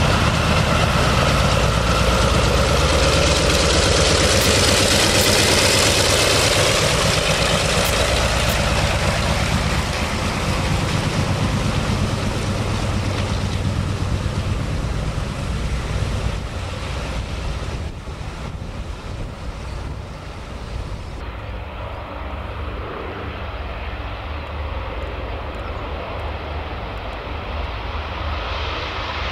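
Four radial piston engines of a Douglas DC-6 running as it taxis past with propellers turning, loud at first and fading as it moves away. After a cut about two-thirds of the way through, a quieter steady drone of the DC-6's engines as it comes in low over the airfield.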